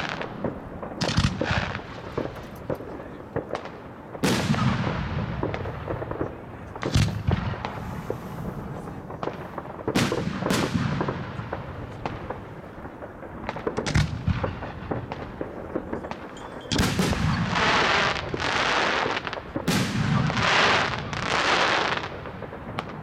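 Firework batteries (cakes) firing in a rapid, irregular string of sharp bangs as shells burst overhead. Several bursts are followed by a trailing hiss, and there are stretches of hiss about a second long each in the second half.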